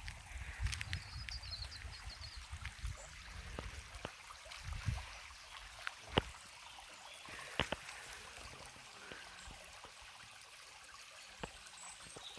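A small stream running steadily. Wind rumbles on the microphone for the first few seconds, and there are a few sharp clicks about six and seven and a half seconds in.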